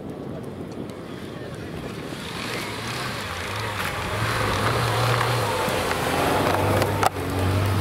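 Lada Niva's engine running under load as it drives through snow, getting louder as it comes closer, with a steady low engine note. A brief sharp click sounds near the end.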